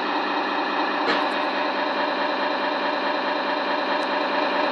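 Tamiya Scania T wrecker model's sound unit playing a steady, even truck-engine idle, with a faint click about a second in.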